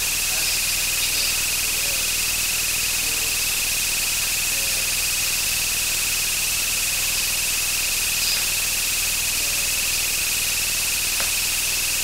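A steady high-pitched whine over constant hiss.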